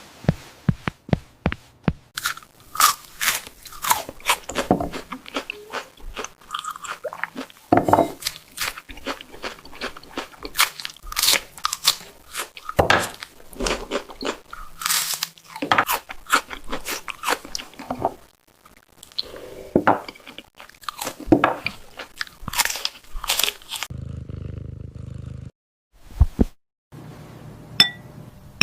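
A cat crunching and chewing crunchy food: quick, irregular crunches, bite after bite. The crunching stops about four seconds before the end, leaving a low hum.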